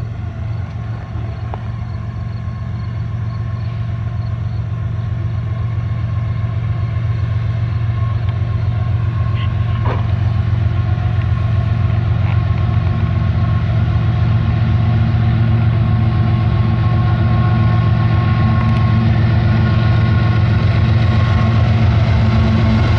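GE diesel locomotives running under power at the head of a coal train. Their engines make a steady low drone that grows louder as the train approaches.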